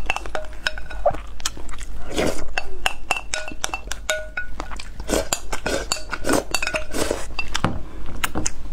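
A wooden spoon scraping and knocking against a textured glass bowl: many quick clinks, several leaving a short ringing tone. Chewing of a mouthful of rice runs between them.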